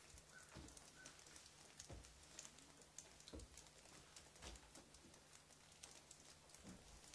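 Faint, slow footsteps climbing wooden stairs, about five soft thuds a second or so apart.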